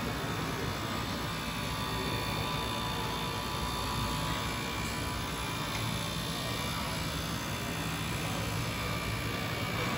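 Automatic microfiber towel sewing machine running, a steady mechanical hum as its motors and rollers feed the fabric strip through.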